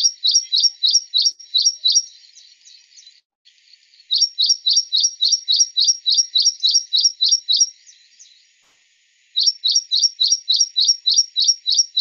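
Ashy prinia singing, played back from a recording: fast runs of sharp, repeated high notes, about five or six a second, in three bouts with short pauses after about two seconds and about eight seconds.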